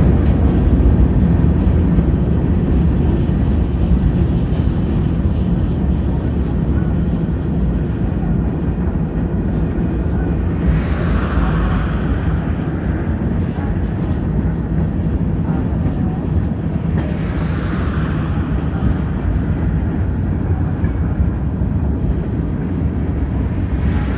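CSX mixed manifest freight train of covered hoppers and boxcars rolling past, a steady low rumble. Three brief louder rushes come through, about 11, 17 and 24 seconds in.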